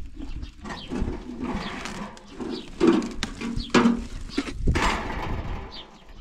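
A series of knocks and clatters, with the sharpest bangs about three and four seconds in.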